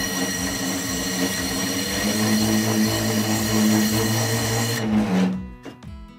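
Bell-knife leather skiving machine (TAKING TK-802) running steadily as a piece of leather is fed through and skived. It stops suddenly about five seconds in.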